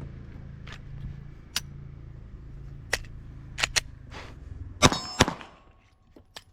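A handgun being worked in a malfunction drill: a few light clicks over a steady low hum, then two gunshots about a third of a second apart, ringing afterwards.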